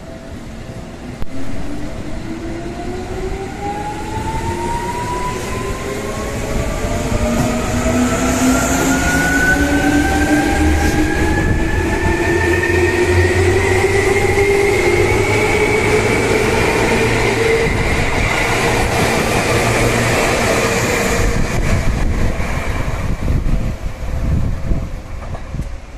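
Seibu 2000-series electric train pulling away and accelerating: its traction motors whine in several tones that climb steadily in pitch for about twenty seconds and then level off, over the rumble of wheels on the rails.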